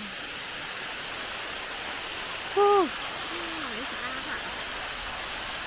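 Steady rushing of a waterfall, with a short vocal sound from a person about halfway through.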